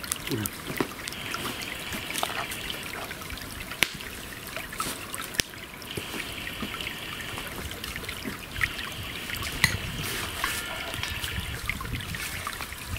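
Log campfire crackling, with a few sharp pops, over a steady trickling hiss. A thin high whistling hiss comes and goes about three times.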